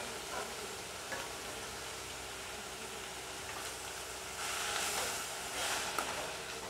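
Moringa leaves frying in a little oil in an aluminium kadai, a steady faint sizzle. After about four seconds a steel spatula stirs and tosses them, adding a louder rustling scrape.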